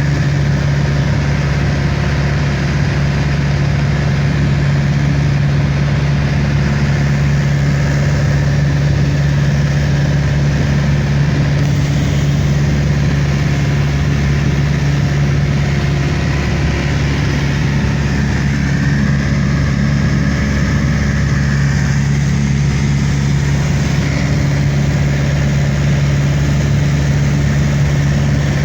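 Airliner engines droning steadily, heard from inside the passenger cabin: a loud, even hum over a constant rush of noise that doesn't change.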